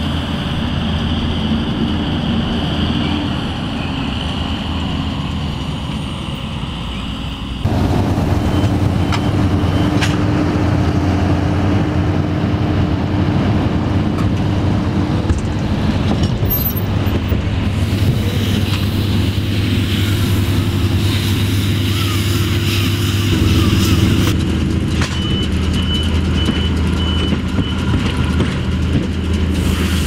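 Tractors running steadily under load while pulling McHale Fusion round baler-wrappers as they bale silage, with machinery clatter over the engine drone; the sound shifts at each change of shot. Twice there is a short run of high, evenly spaced beeps.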